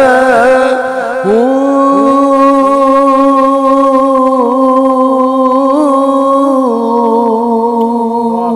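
A man singing a Punjabi Sufi kalam, drawing out one long held note with small wavering turns.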